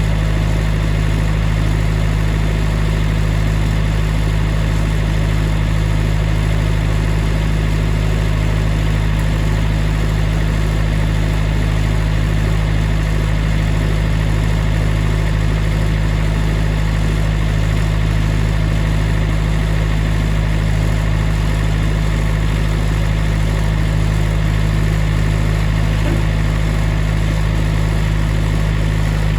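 Sawmill engine running at a steady, unchanging speed.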